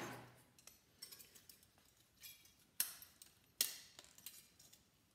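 Thin aluminum cooling fins being bent and worked off a magnetron's core by hand: scattered faint metallic clicks and clinks, the two sharpest about three and three and a half seconds in.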